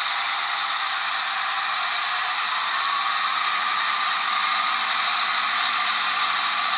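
A steady, even hiss like static or white noise, with no low rumble, that switches on and off abruptly.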